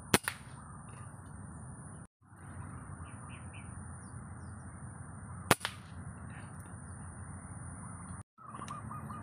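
Two air rifle shots about five and a half seconds apart: the first right at the start, followed a moment later by a smaller crack, and the second near the middle. Faint bird chirps in between, and two brief moments of dead silence.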